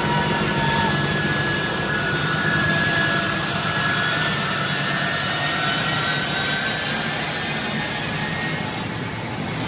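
Pratt & Whitney F117 turbofan engines of a U.S. Air Force C-17 Globemaster III running on the ground as it taxis: a steady, loud rush of jet noise with high whining tones that drift slightly in pitch.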